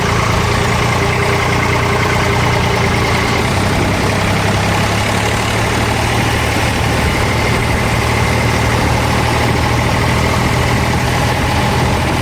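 Eicher 485 tractor's three-cylinder diesel engine running steadily at an even speed.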